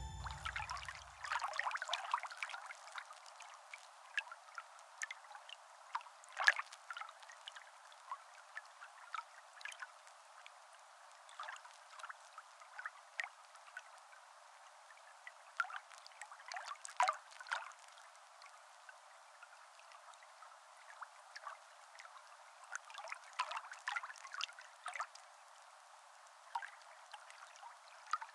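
Faint underwater water ambience: bubbling and trickling made of scattered small irregular pops, with no bass. The last of a music note dies away in the first second or so.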